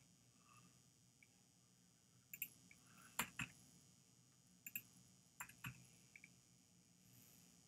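Computer mouse clicking: about ten short, sharp clicks, several in quick pairs, over a faint steady hum.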